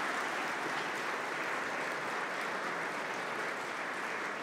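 Audience applauding, a steady even clapping that eases a little toward the end.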